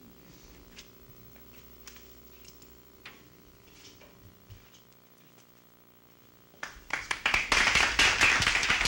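A hushed pause with a few faint ticks, then a studio audience starts applauding loudly near the end, the clapping continuing on.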